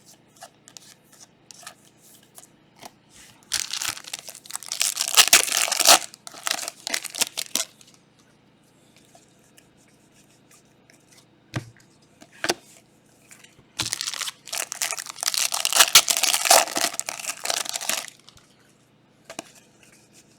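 Trading card pack wrappers being torn open and crinkled, in two bouts of tearing and crackling a few seconds apart, with light clicks of cards being handled in between.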